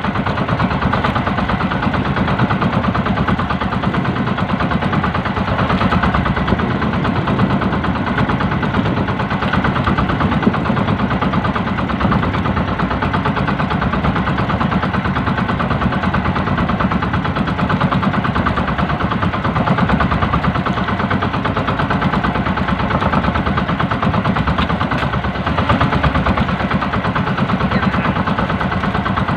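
Outrigger fishing boat's engine running steadily with a fast, even putter.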